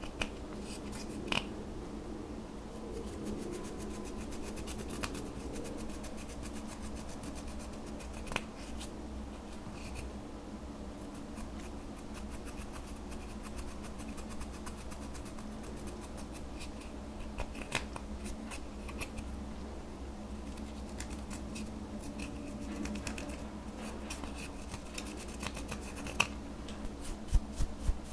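Pressed eyeshadow powder being scraped and crumbled out of a plastic compact with a plastic spatula: a steady fine scratching with occasional sharp clicks, and a few louder taps near the end.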